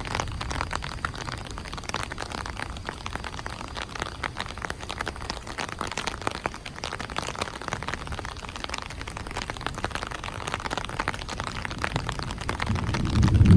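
Steady rain, a dense patter of drops. A deep rumble of thunder swells up loudly near the end.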